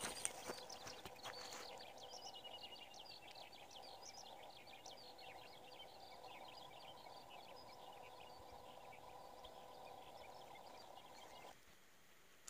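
Birds chirping in a quick, busy run of short calls, one note held briefly early on, over a faint steady background hum. A dog's paws pad through grass in the first second or so, and the hum and birdsong cut off abruptly about a second before the end.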